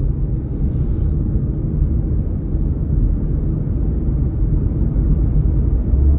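Steady low rumble of a car's road and engine noise heard from inside the cabin while driving at speed.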